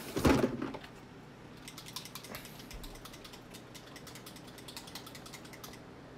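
A handling bump right at the start, then about four seconds of quick, even rattling clicks: a hobby paint dropper bottle being shaken, its mixing ball knocking inside.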